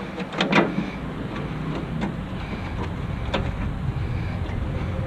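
A few sharp metallic clinks and knocks from scrap grill parts being handled and taken apart by hand, two close together about half a second in and single ones later, over a steady low rumble.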